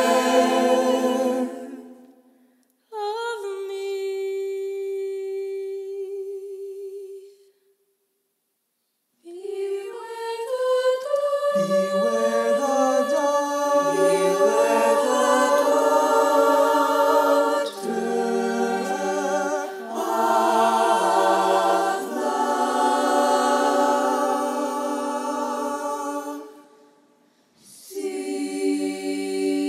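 Unaccompanied show choir singing a ballad, with no instruments. A held chord fades out about two seconds in, and a single voice sings a long wavering note for about four seconds. After a short silence the full mixed choir comes in with swelling chords, low voices included, then fades away near the end before another sustained chord begins.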